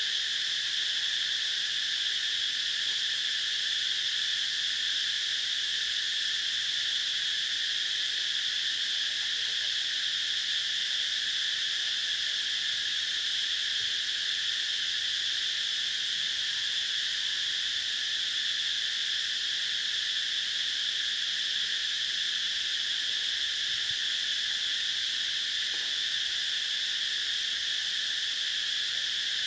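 A steady, high-pitched insect chorus droning without a break.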